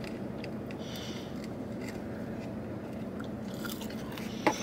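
A person chewing food, likely French fries, with scattered small mouth clicks over a steady low hum.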